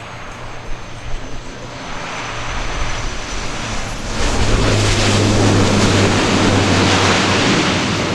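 Military aircraft passing low overhead, its engine noise building and then turning loud about four seconds in, with a steady low hum under the roar.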